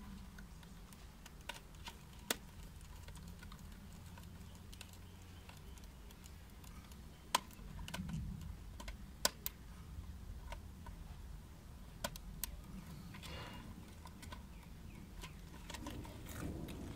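Faint, irregular small clicks and ticks of wires and a small screwdriver being worked into the plastic screw-terminal block of an infrared beam unit, over a low steady background hum.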